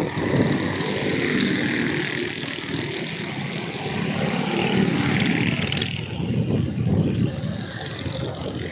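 Motorcycle running along a city street: a steady engine and road rumble from the moving bike, with other motorcycles in the traffic around it.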